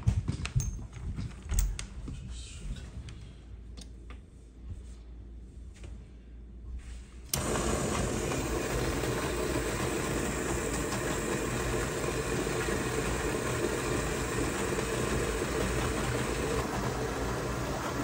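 An Electrolux semi-commercial undercounter dishwasher starting its cycle. After a few light clicks, a steady machine-and-water running noise comes on suddenly about seven seconds in and keeps going evenly.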